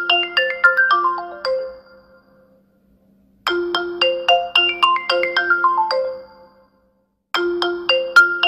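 Phone ringtone for an incoming call: a short melody of quick marimba-like notes stepping down in pitch, repeating about every four seconds with a brief pause between repeats.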